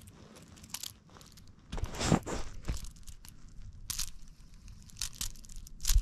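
Irregular rustles, scrapes and clicks of hands handling a fidget spinner and brushing against fabric sleeves close to the microphone. The loudest bursts come about two seconds in and just before the end.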